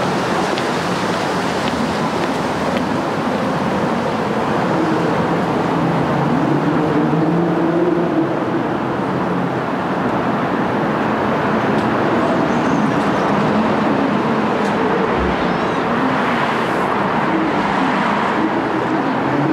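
Steady city street noise, mostly road traffic.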